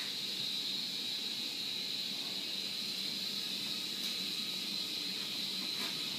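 Steady hiss throughout, with a few faint scratches and rustles about four seconds in and near the end from a small dog pawing and burrowing into the bed's pillows and bedding.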